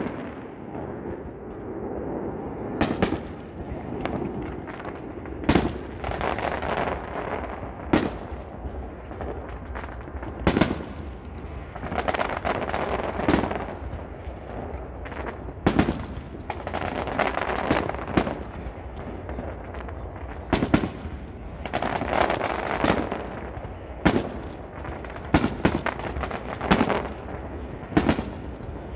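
Aerial fireworks display: shells bursting in sharp bangs every second or two, with longer stretches of crackle between them.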